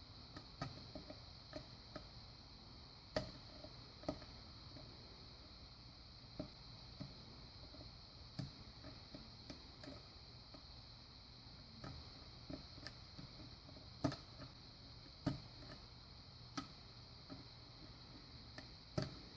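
Lock pick working the pins of a pin-tumbler lock under tension: faint, irregular small clicks, a few louder than the rest, as pins set and other pins drop back.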